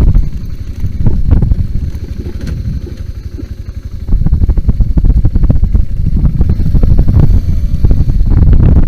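BMW G 650 GS motorcycle's single-cylinder engine running under way; it gets louder about four seconds in.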